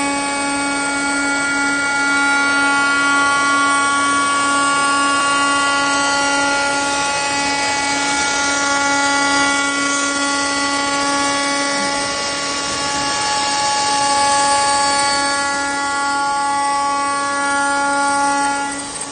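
CNC router spindle running an aluminium-cutting bit through a cut: a steady whine of several held pitched tones over a hiss of cutting noise. It eases off just before the end.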